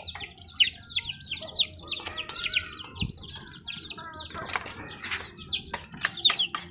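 Chicken chicks peeping over and over, a quick run of short, high, falling peeps, with a few brief rustles and knocks in the second half.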